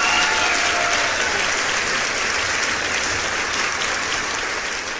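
Crowd applause: a dense, steady patter of clapping that begins to fade near the end.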